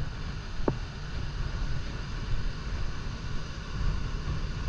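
Wind buffeting the microphone over the steady rushing of Horseshoe Falls and the Niagara River rapids.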